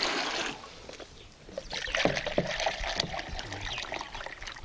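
Water poured from a one-litre jug onto straw in a mixing basin, splashing and rustling. A first gush near the start, then a longer run of uneven splashes from about two seconds in.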